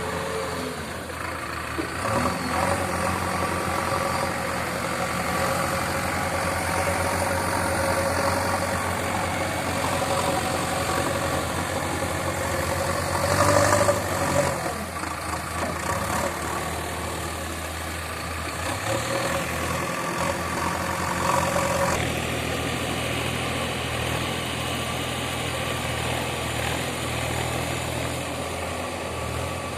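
Diesel engine of a JCB construction machine running steadily, louder briefly about halfway through.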